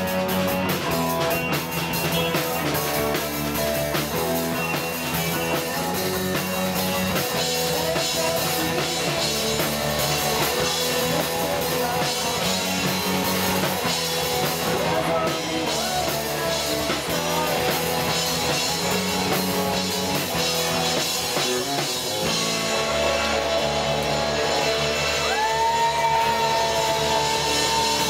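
A rock band playing live: electric guitar, bass guitar and drum kit, with a singer, and a long held note near the end.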